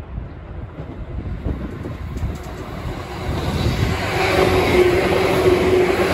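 Seibu New 2000 series electric commuter train approaching and passing close by. The rumble of the running train grows louder over the first few seconds, and a steady hum joins it as the cars go past.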